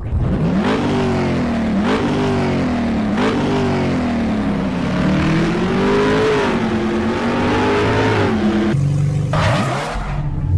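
Car engine sound effect accelerating: the revs climb and drop back three times in quick succession, then rise more slowly and hold. It breaks off near the end into a short whoosh.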